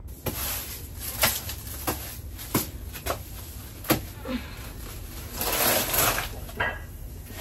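Scattered knocks and a rustling scrape of soil being worked into a plastic crate, with one longer scrape about five and a half seconds in.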